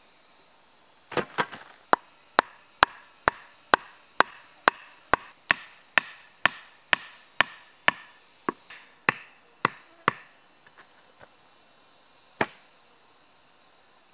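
Blade chopping wood: a steady run of about twenty sharp strikes, roughly two a second, then a few faint taps and one last strike a couple of seconds later.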